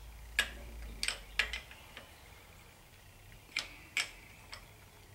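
A wrench tightening a brass oil pressure sender adapter into the engine: about seven sharp metallic clicks at irregular intervals, as the fitting nears full tightness.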